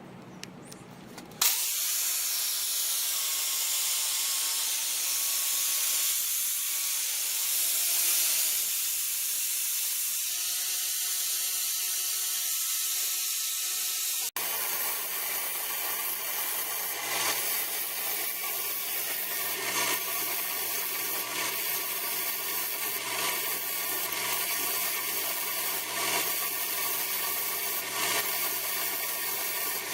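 A power tool running steadily, a motor's hum under a hiss. About halfway through the sound changes abruptly to a rougher, steadier noise with faint irregular ticks.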